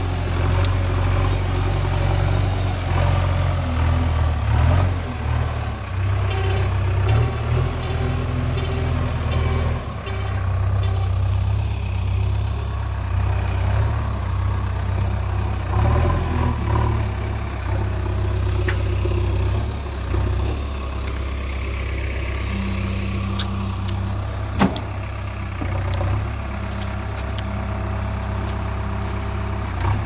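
JCB 3DX Eco backhoe loader's diesel engine running, its revs rising and falling as the machine works, with one sharp clank a little past the two-thirds mark.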